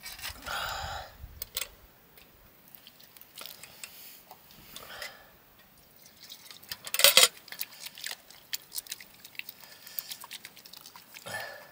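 Metal dishes and utensils clinking and knocking in irregular, scattered strikes, with one louder clank about seven seconds in and a few short scrapes.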